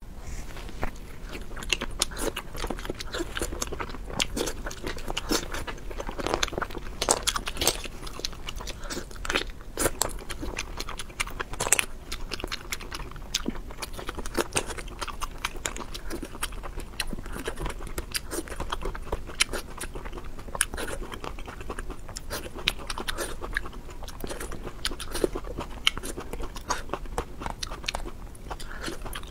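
A woman eating close to a clip-on microphone: steady chewing with frequent crunches and bites, and many small sharp clicks all through.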